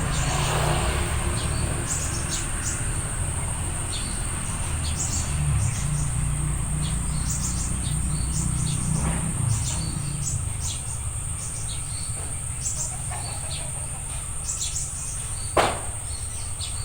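Small birds chirping over and over in short, high notes, over a steady high-pitched insect drone and a low rumble. A single short knock comes near the end.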